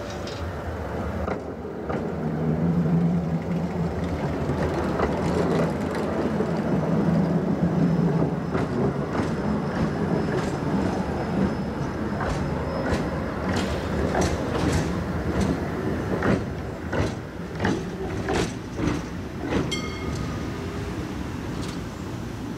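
A tram passes close by over a track junction. A low running hum builds as it approaches. Then its wheels clack repeatedly over the points and crossing rails, in a run of sharp clacks that spread out as the last wheels go over.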